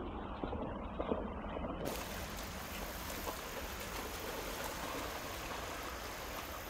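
Creek water flowing with a steady rush, with a few splashes in the first two seconds from a dog swimming through it.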